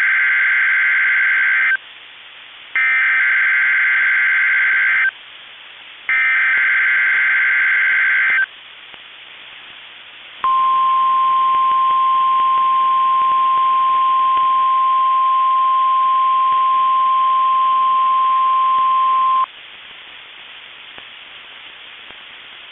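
NOAA Weather Radio Emergency Alert System test tones: three bursts of SAME digital header data, each about two seconds long with short gaps between them, then a steady single-pitch 1050 Hz warning alarm tone held for about nine seconds. The alarm tone is the signal that switches on alert-equipped weather radios.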